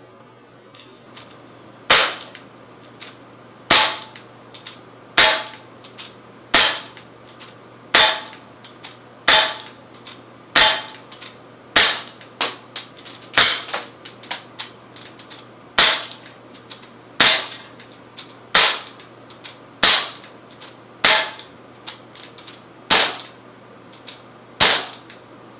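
Sig Sauer M17 .177 CO2 blowback pellet pistol firing a steady string of about seventeen sharp pops, roughly one every second and a half. Most shots are followed closely by a softer click.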